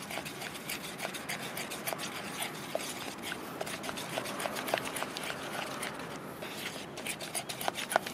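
A stick stirring liquid epoxy resin in a plastic bucket, with a steady wet swishing dotted with many small clicks as it scrapes and taps the bucket's sides.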